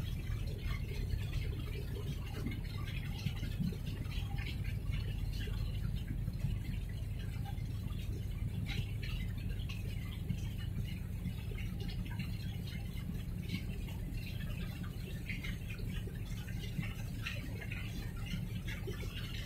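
Harbour ambience at night: a steady low rumble with faint small ticks and patter scattered over it.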